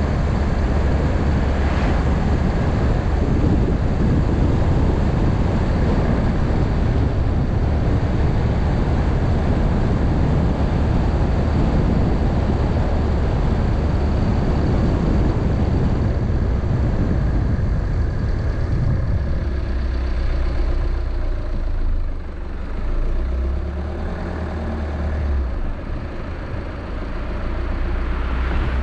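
Car driving on a road: steady engine and road noise. About two-thirds of the way through, the road noise fades, leaving a low engine hum.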